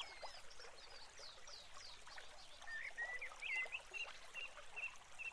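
Faint outdoor birdsong over a soft steady hiss: quick high downward-sweeping chirps in the first two seconds, then a string of short repeated notes, about three a second.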